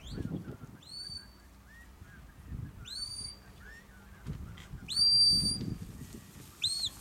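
Shepherd's whistle commands to a sheepdog working sheep into a pen: a series of high whistled notes, each sliding up and then held. The longest and loudest comes about five seconds in, and a short one follows near the end.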